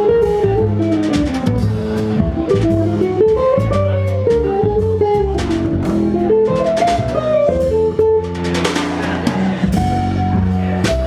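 Jazz quintet playing a bossa nova arrangement: a guitar melody over bass and drum kit, with a cymbal swell about eight seconds in.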